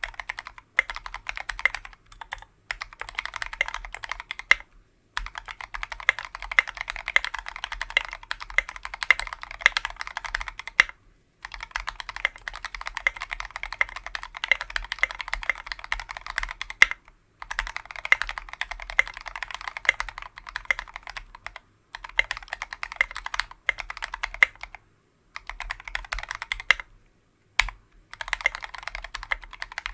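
Fast typing on a KBDfans Tofu 60% mechanical keyboard with a brass plate, lubed Tealios V2 linear switches and SA-profile keycaps: dense runs of keystrokes lasting a few seconds each, broken by short pauses.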